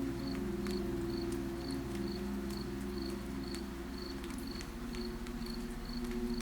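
Crickets chirping in an even rhythm, about two chirps a second, over soft steady rain with scattered drip clicks and a low steady hum underneath.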